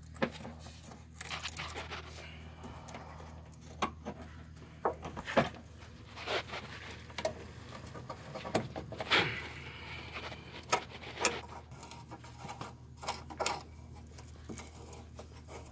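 Faint, irregular clicks and scrapes of hands threading the steel fuel-line nuts onto a new inline fuel filter, metal fittings knocking and rubbing as they are turned finger-tight. A few sharper clicks stand out, about five, nine and eleven seconds in.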